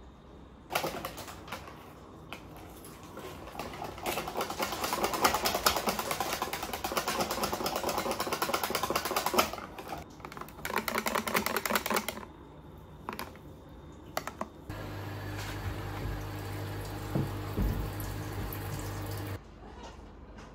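Wire whisk beating batter in a bowl: a fast, dense rattling clatter for several seconds, with a shorter burst after it. Later a steady low hum starts and cuts off suddenly near the end.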